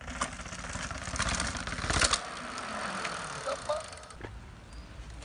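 Downhill mountain bike clattering down concrete stairs: irregular knocks and thuds as the wheels drop off the steps, with rattling from the bike. The loudest knock comes about two seconds in, and the noise eases off after about four seconds.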